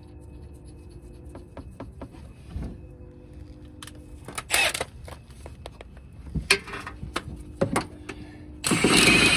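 Metal tools clinking and knocking a few times, then near the end a power tool runs loudly for about two seconds while the harmonic balancer bolt is run in.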